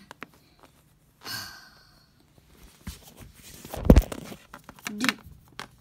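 A breathy sigh about a second in, then a loud thump and handling noise just before the four-second mark as the camera is moved over the floor.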